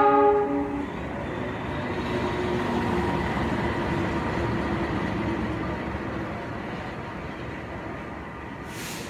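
A diesel locomotive's horn blast ends just under a second in. The locomotive and its passenger coaches then roll past at low speed with a steady rumble of engine and wheels, loudest a few seconds in and slowly fading.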